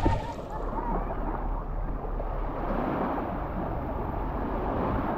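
Small waves lapping and washing on a sandy shore, with wind rumbling on the microphone; a short knock right at the start.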